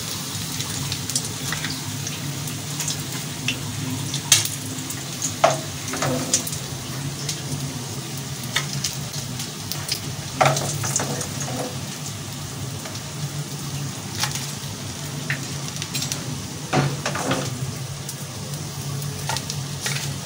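Hot oil sizzling steadily around gram-flour-battered egg pakoras in a frying pan, with scattered sharp clinks of a metal slotted spoon as the pakoras are lifted out.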